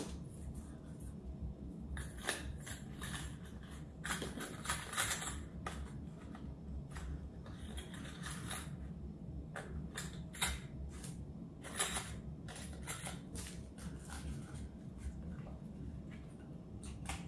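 Small metal screws and mounting brackets being handled in and out of a plastic bag: scattered crinkling of the bag and light metallic clicks, in several short bursts over a steady low hum.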